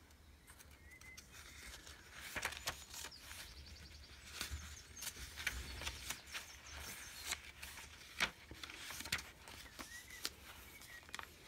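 Paper pages of a handmade junk journal being turned and handled: irregular rustling, light taps and crinkles, with one sharper snap about eight seconds in.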